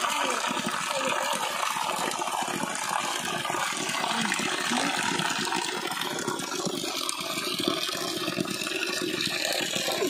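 Hillside spring water running and splashing steadily.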